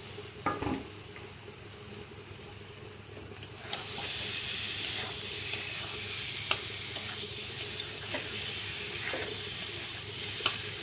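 Chunks of potato, green banana and boiled egg being stirred with a metal spatula through hot spiced oil in a steel wok. The frying sizzle grows louder about four seconds in, and the spatula clinks and scrapes on the pan several times.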